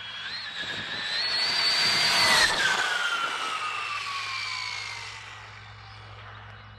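High-speed electric RC car passing by at full speed: a high motor-and-drivetrain whine that rises and grows louder as it approaches, drops in pitch as it passes about two and a half seconds in, then fades as it drives away.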